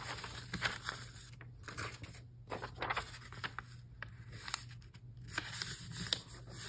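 Sheets of paper being handled and sorted, rustling and crinkling in short irregular bursts with small taps.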